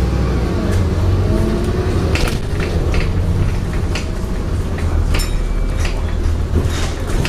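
Scania N230UD double-decker bus on the move, heard from inside the passenger saloon: a steady low engine and road rumble with many short rattles and clatters from interior panels and fittings.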